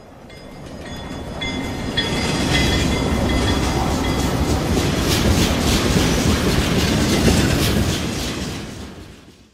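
A train running on rails, a heavy rumble with rattling clatter that swells up over the first two seconds, holds loud, then fades out near the end.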